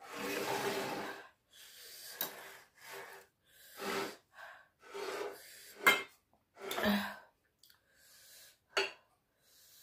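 A woman eating spicy chilli, breathing out hard through her mouth against the heat: a long breath in the first second, then short breaths and mouth noises about once a second, with a couple of sharp clicks.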